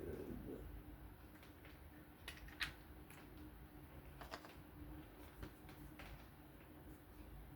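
A few small, sharp clicks and taps from the parts of a small folding knife being handled during reassembly, over a faint steady hum.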